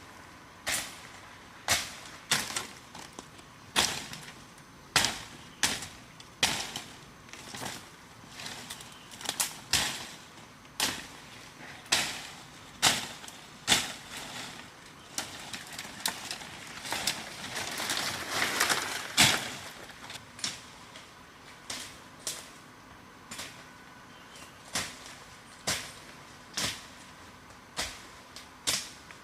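Repeated sharp knocks or chops at an uneven pace, roughly one or two a second, like a hard tool striking wood. A short stretch of scraping comes a little past the middle.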